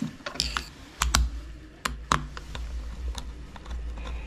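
Irregular sharp plastic clicks and taps as a white three-pin mains plug is put back together, with a screwdriver working at its screw.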